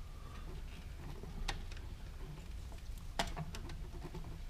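Screwdriver turning a terminal screw on a GFCI outlet to clamp down a loose wire, giving a few small metal clicks and scrapes; the sharpest click comes about three seconds in.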